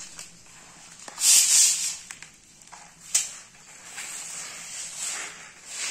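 Loose wheat grains rustling and sliding as small hands sweep them across a plastic tarp and handle a metal sieve of grain, in short hissy bursts, the loudest about a second in. A sharp click about three seconds in.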